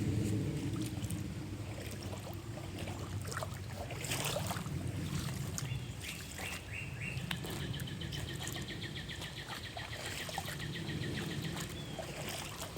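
A small songbird trilling outdoors, a fast, even run of high notes starting about halfway through and lasting almost to the end, with a few short chirps just before it. Under it runs a steady low rumble.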